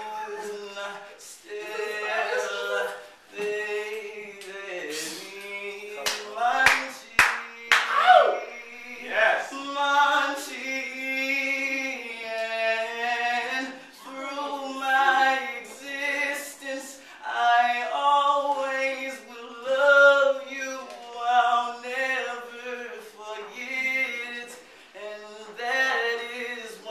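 A voice singing unaccompanied, a melodic line of held, wavering notes. A few sharp clicks come about six to eight seconds in.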